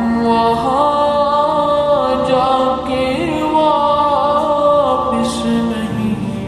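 Background music: a solo voice singing a melodic, ornamented line over a steady held drone.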